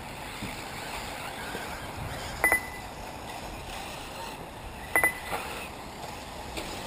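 Two short, ringing double clinks about two and a half seconds apart, over a steady background hiss.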